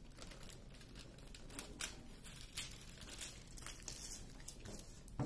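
Faint, intermittent crinkling and crackling of a diamond painting canvas's plastic cover film being handled and peeled back by hand from the glued drill area.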